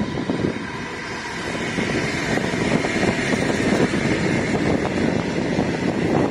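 Diesel-hauled passenger train passing close by: the locomotive goes past, then a long line of stainless-steel carriages rolls by on the rails with a steady, loud rumble.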